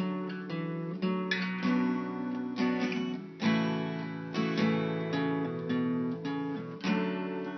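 Acoustic guitar music: strummed and plucked chords ringing out, with a fresh chord struck every second or so.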